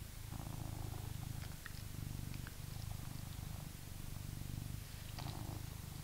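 British Shorthair cat purring steadily, the low purr pulsing in cycles of about a second with each breath.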